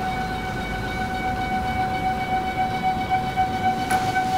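Motor of the Lee Hyun multi wood machine giving a steady high whine as the router head is driven down toward the slab. The whine cuts off abruptly at the end, with a light click shortly before.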